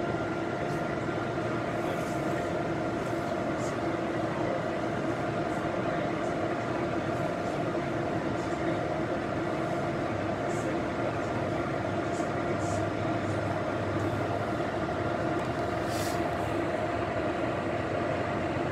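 Steady running noise of a commuter train car, heard from inside: an even rumble with a constant hum and a few faint ticks.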